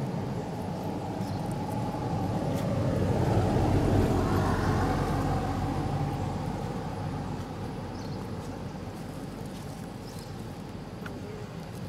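A motor vehicle's engine noise passing by, swelling to its loudest about four seconds in and then slowly fading.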